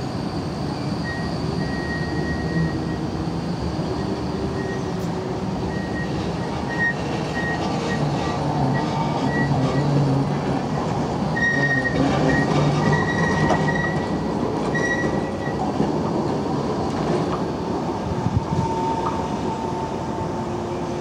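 Tram rolling slowly around a tight turning loop. Its wheels squeal on the curve in a thin high tone that comes and goes, over the rumble of the running gear, loudest about halfway through.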